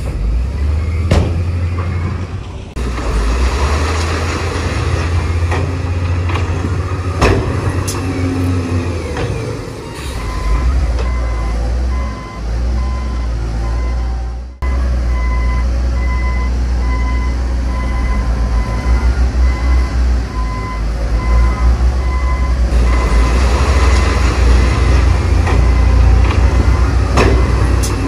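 Heavy diesel earthmoving machines (bulldozer, wheel loader, dump trucks) running with a deep, steady engine rumble and a few sharp clanks. About a third of the way in, a reversing alarm starts beeping steadily and keeps on to the end.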